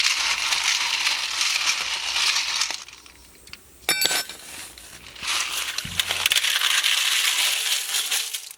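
Handfuls of wild river snails being rubbed together while they are washed, their shells grinding and clinking. It comes in two spells of about three seconds each, with a brief sharp clatter in the pause between them, about four seconds in.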